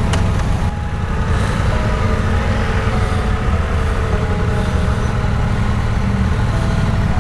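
Triumph Tiger 1200 Rally Explorer's three-cylinder engine running at a steady speed: a deep, even sound with a few steady tones above it.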